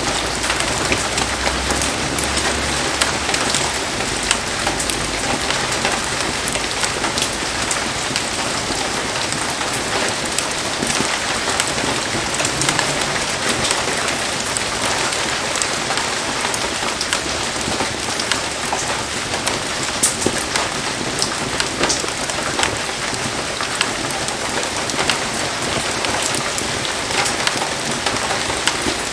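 Heavy rain falling: a steady, dense hiss with many sharp ticks of individual drops hitting surfaces.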